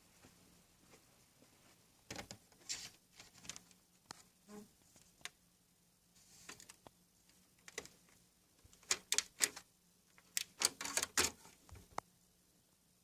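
Computer parts being handled during assembly: irregular clicks, taps and scratchy rustles in clusters, about two seconds in, around seven seconds, and densest from about nine to twelve seconds, over a faint steady hum.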